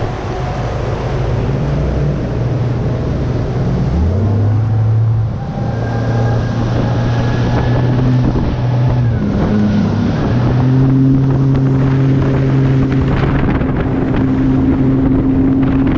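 Bass boat's outboard motor running at speed, its steady engine tone stepping up in pitch about four seconds in and shifting again around ten seconds, over wind buffeting the microphone and water rushing past the hull.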